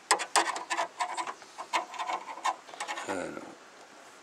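Screwdriver scraping and clicking against the metal bonnet latch of a Mercedes Vito van while the latch is fixed in place. There is a quick run of sharp clicks over the first two and a half seconds, then a short falling tone about three seconds in.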